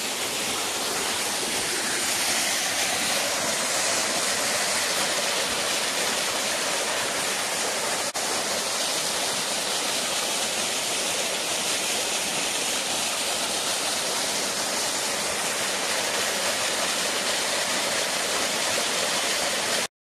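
Small waterfall cascading over mossy rock into a shallow pool: a steady rush of falling water, with one brief click about eight seconds in, cutting off suddenly at the very end.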